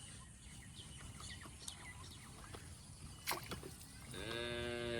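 A cow mooing once near the end, one long call that rises, holds and then falls. A single sharp click comes about three seconds in.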